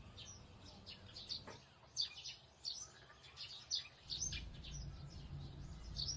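Small birds chirping: many short, high chirps and quick downward-sweeping calls, over a low background rumble that comes in partway through.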